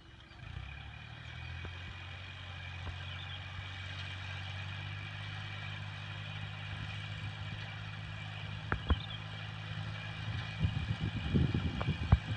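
A vehicle engine running at a steady idle, its hum setting in about half a second in. A couple of sharp knocks, then clattering near the end.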